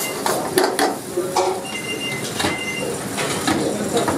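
Cooking at a street-food stall: a steady hiss of frying with irregular metal knocks and scrapes of a spatula on the pan.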